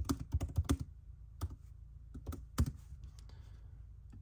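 Typing on a MacBook Pro laptop keyboard: a quick run of key clicks in the first second, then single scattered keystrokes, one louder than the rest about two and a half seconds in.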